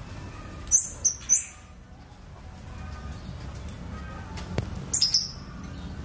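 Kemade, a small flowerpecker, giving short, sharp, high-pitched chirps: three quick calls about a second in and a fast cluster near the end.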